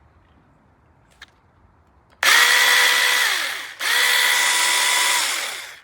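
Cordless electric mini chainsaw running in two short bursts with a steady high motor whine: it starts about two seconds in, winds down briefly as the trigger is let go, then runs again until near the end, when it falls away.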